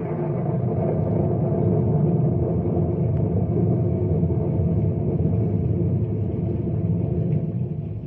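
A loud, steady low rumble from a radio-drama sound effect, holding level without rising or falling.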